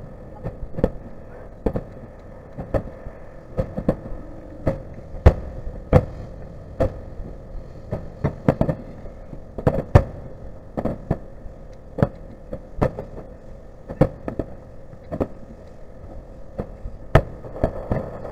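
Fireworks shells bursting: an irregular string of sharp bangs, about one or two a second, over a continuous low rumble.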